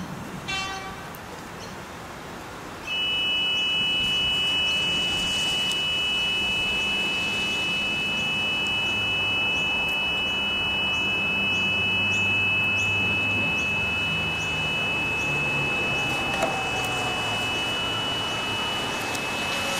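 Railway pedestrian crossing warning alarm sounding as the mini boom gates come down: a steady, high electronic two-note tone switches on about three seconds in, with faint regular ticks. Near the end the falling whine of an approaching X'trapolis 100 electric train joins it.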